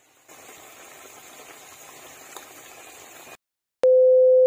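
Crabs and shrimp in sauce bubbling in a wok, a steady hiss that cuts off about three seconds in. After a brief silence comes a loud, steady, single-pitched test-card beep lasting about a second.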